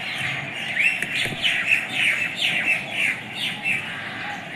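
Birds squawking: a quick run of about ten short, sharp calls, each falling in pitch, from about a second in until near the end.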